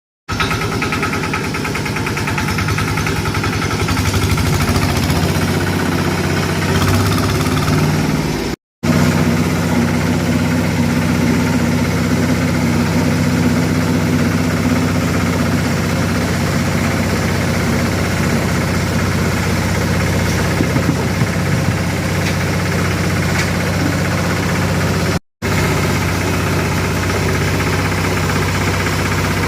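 Pellet-making machine running steadily under its motor, a low even hum with a rough mechanical rattle over it. The sound drops out for an instant twice, about nine and twenty-five seconds in.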